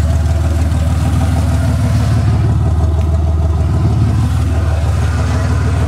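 Ford Bronco II's V6 engine running steadily at low revs, with no revving.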